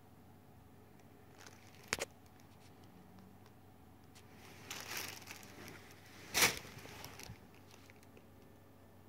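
A sharp click about two seconds in, then rustling and scuffing as a memory-foam bath mat is flipped over on a carpet, loudest about six and a half seconds in.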